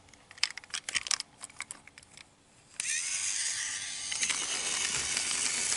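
Sharp plastic clicks of a battery-powered toy train being handled and its on/off switch on the underside worked. About three seconds in, its small electric motor switches on and runs with a steady whirr.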